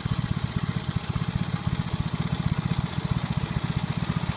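Small engine of a Snapper rear-engine riding lawn mower running steadily, with a rapid, even pulse of about a dozen firings a second.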